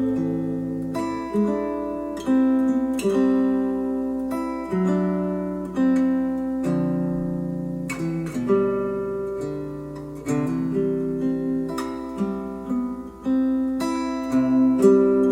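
Instrumental acoustic guitar music, played back through hi-fi bookshelf speakers: plucked and strummed chords, each starting sharply and dying away, with a new attack about every second.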